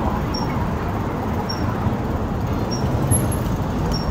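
Steady rushing noise of riding a bicycle along a city sidewalk, with wind and rolling noise on the microphone and street traffic beneath it. A faint high tick repeats about once a second.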